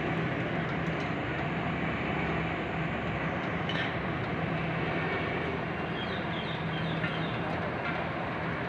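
Steady engine hum and street rumble from the work site, even throughout. A few short high chirps come about six to seven seconds in.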